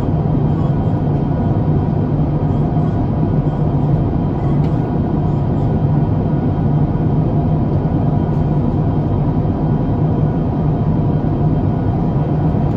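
Steady cabin noise of an Airbus A350-900 in cruise, heard inside the cabin: an even rush of engine and airflow noise over a low hum.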